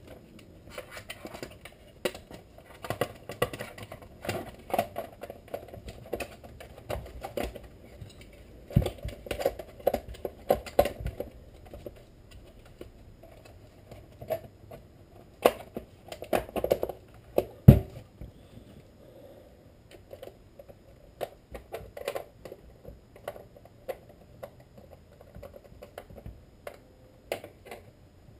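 Irregular clicking, tapping and light rattling of chainsaw parts and tools being handled on a workbench, with a few sharper knocks about nine, fifteen and eighteen seconds in.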